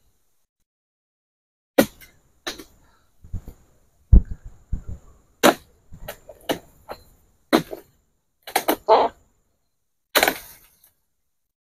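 Long-poled harvesting sickle (egrek) cutting into an oil palm's crown: about a dozen sharp cracks and knocks, irregularly spaced, with the longest, broadest crack about ten seconds in.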